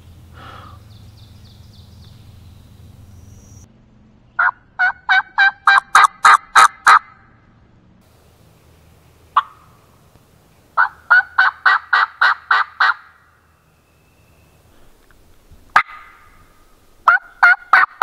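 Hand-held turkey-hunting call blown by the hunter in three quick runs of about eight to ten harsh, evenly spaced notes, with a single sharp note between the runs.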